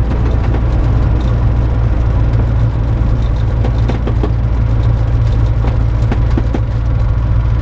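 Light aircraft's piston engine running steadily, a constant low drone.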